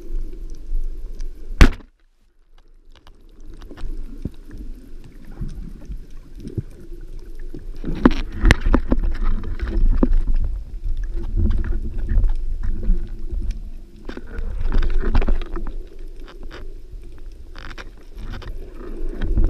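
Band-powered speargun firing underwater, a single sharp crack about two seconds in. Then comes underwater rumble with scattered knocks and clicks as the gun, shaft and line are handled.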